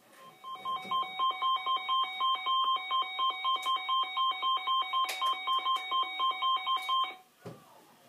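Pulsing two-pitch electronic alert tone from a tornado-warning emergency alert, beeping about four times a second for about seven seconds and then cutting off suddenly. It is played through a laptop's speakers and heard in the room.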